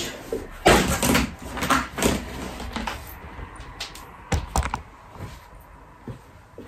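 Household handling noises from a wooden wardrobe and a plastic laundry basket being moved: a burst of knocking and rustling about a second in, then two sharp knocks about four and a half seconds in.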